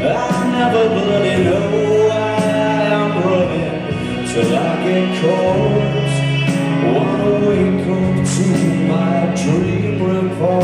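A live rock band playing a slow song, with singing over sustained chords and several cymbal crashes.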